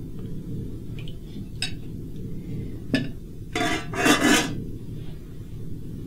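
Cutlery on a plate during a meal: a few light clinks, then two short scrapes about halfway through, over a steady low room hum.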